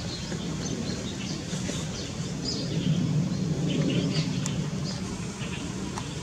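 Small birds chirping in short, scattered calls over a steady low background hum.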